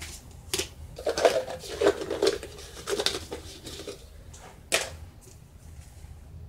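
Measuring cups clattering and scraping while washing soda is scooped and measured out: a flurry of rattling knocks for a few seconds, then a single sharp click.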